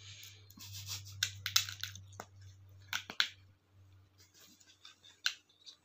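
A cat's paws and claws tapping and scratching at a tablet screen and scrabbling on bedding: irregular sharp clicks and scratchy rustles, thickest in the first half.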